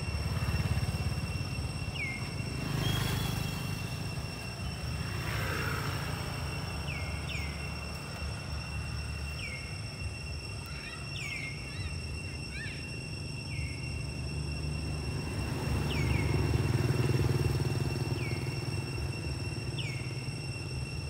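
Motorcycle engine idling with a low steady rumble. Short chirps repeat every second or two over a steady high-pitched whine.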